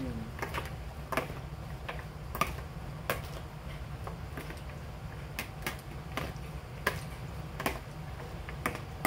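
Metal spoons stirring and tossing chopped vegetables in a plastic mixing bowl: irregular light clicks and taps of the utensils against the bowl and each other, over a steady low hum.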